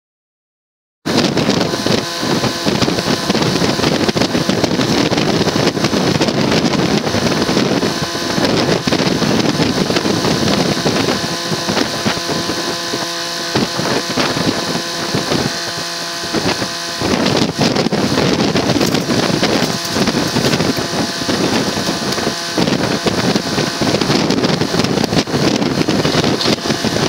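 A tractor engine running steadily, with wind buffeting the microphone. It starts suddenly about a second in, after silence.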